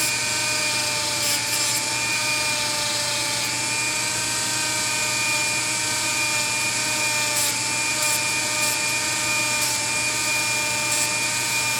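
Dremel rotary tool running steadily at high speed with a wire-wheel brush, scouring corrosion off a small model-train wheel. A constant high whine with a few brief scratchy ticks where the wire touches the metal.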